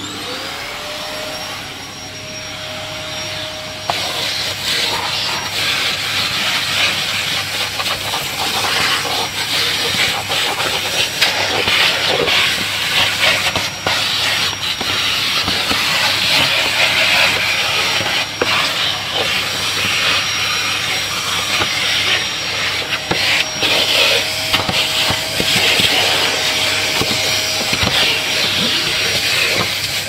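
Vacuum cleaner running: a steady high motor whine over a loud rushing of air that steps up about four seconds in and stays uneven after that.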